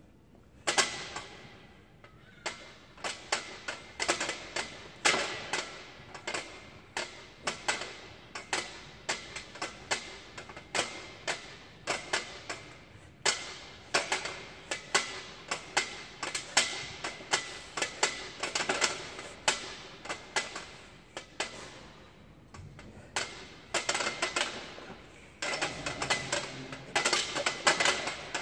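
Pull-up bar rig rattling and clicking under a set of pull-up reps, sharp knocks coming several a second in uneven clusters, with a short lull before the last reps.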